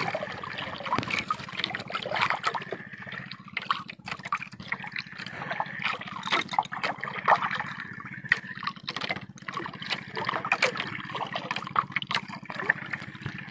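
Water lapping and trickling against the hull of a small paddled outrigger boat, with irregular small clicks and knocks over a faint steady low hum.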